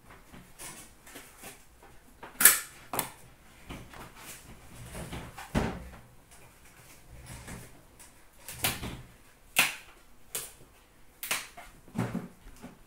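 Irregular knocks, clicks and rustles of a trading-card box and its packaging being handled on a shop counter, the sharpest knock about two and a half seconds in.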